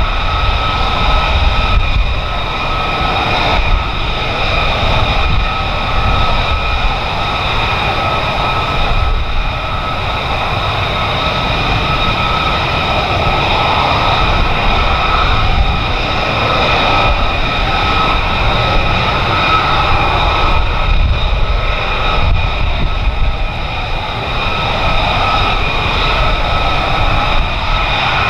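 Jet engine running steadily, a constant multi-tone whine over a low rumble.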